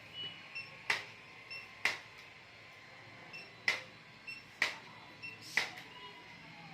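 Chiropractic impulse adjusting gun firing: five sharp clicks about a second apart, with a short pause in the middle.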